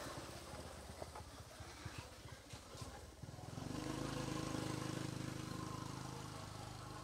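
A motor vehicle's engine passing by: a low, steady hum that swells about three seconds in and then slowly fades. A few faint clicks come before it.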